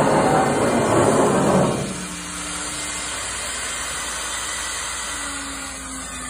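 CNC router machinery running: a loud rushing hiss for about the first two seconds, then a steadier, quieter hum with a faint tone.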